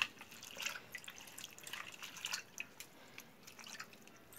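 Hands swishing and rubbing spinach leaves in a bowl of plain water during a rinse, making small irregular splashes and drips.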